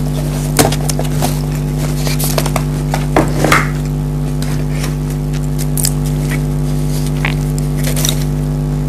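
Pringles potato crisps being crunched and chewed close to the microphone, in scattered crisp snaps with the strongest around the middle, over a steady low electrical hum.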